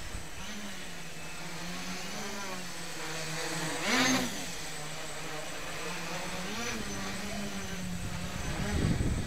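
Homebrew wooden-frame quadcopter's motors and propellers buzzing steadily, the pitch rising briefly several times as the throttle changes. It is loudest about four seconds in as it passes close. A low rumble builds near the end.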